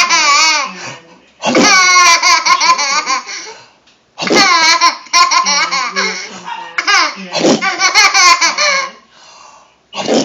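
A young child laughing hard, in several long, high-pitched bursts of laughter with short breaks for breath.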